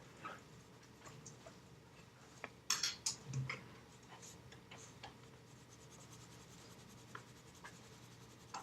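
Graphite pencil strokes scratching on paper, faint and intermittent, with a louder run of strokes about three seconds in.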